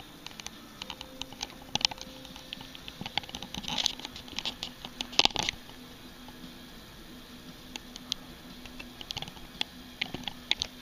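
Handling noise: irregular small clicks, taps and rustles, with louder clusters about four and five seconds in, as the break-barrel air rifle is handled.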